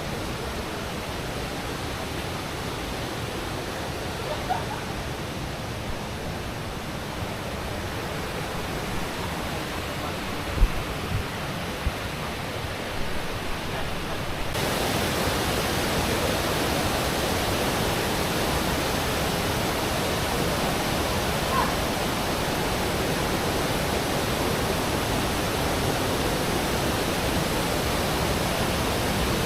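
Steady rush of falling water from a waterfall, growing louder and brighter about halfway through. A few short low thumps come about ten to twelve seconds in.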